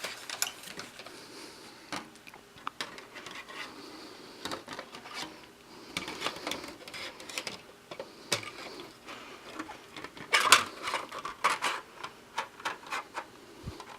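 Handling noise of a plastic LED light panel: scattered clicks, taps and rustling as the LED board is fitted back into its housing.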